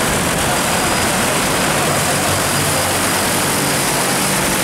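DJI T40 agricultural spray drone in flight, its coaxial rotors giving a loud, steady whir.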